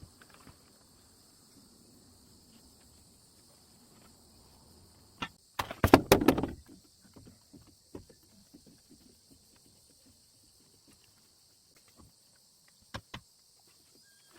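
Insects chirring steadily. About five seconds in comes a short, dense burst of loud clacks and rattles, then scattered light knocks and two sharp clicks near the end.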